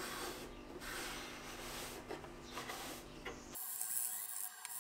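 Sponge and then a scouring pad scrubbing back and forth on the old wooden reed pan of a reed organ, a rough rub with each stroke, about once a second. A little over three seconds in the sound changes suddenly to a thinner, hissier scrubbing.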